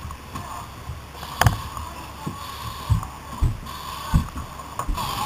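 Irregular low thumps and knocks of movement against a helmet-mounted camera, one a sharper click, over a steady hum and faint hiss.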